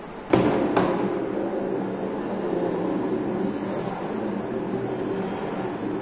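Metal ball dropping into a gravity-well exhibit's curved dish with two sharp clacks, then rolling around the dish with a steady low rumble.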